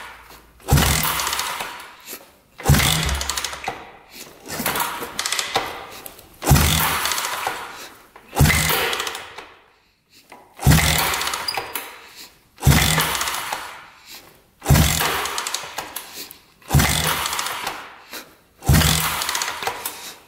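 1974 Honda CB360's air-cooled parallel-twin engine being turned over with a compression tester in one spark-plug hole and the throttle open. It comes in repeated cranks, about one every two seconds, each starting sharply and fading. This is a compression test, with the reading climbing to almost 180 on this cylinder, which is good compression.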